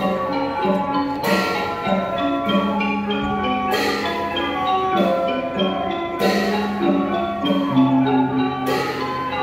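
Mon piphat ensemble playing dance music: a busy melody of struck xylophone and gong-circle notes, with a louder ringing stroke about every two and a half seconds.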